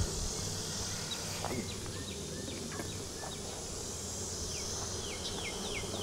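Honeybees buzzing steadily around the open hives. Near the end a bird calls a quick run of short falling notes, about three a second.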